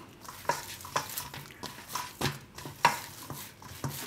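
Hands kneading soft, oiled dough in a stainless steel bowl: a series of short, irregular slaps as the dough is pressed and turned against the bowl.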